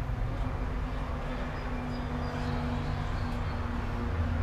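Steady low rumble with a faint steady hum, typical of a car engine idling.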